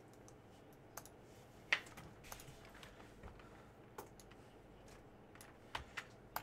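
Sparse, faint typing and clicking on a computer keyboard: about half a dozen separate clicks at irregular intervals.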